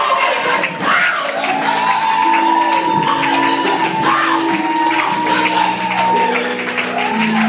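A church keyboard plays held chords while the congregation shouts and cheers, and one voice sustains a long, high, wavering call over it.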